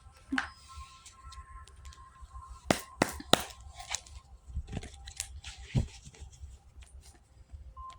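Tarot cards being handled: several sharp snaps and clicks, three loud ones in quick succession about three seconds in, over soft background music with sustained chime-like tones.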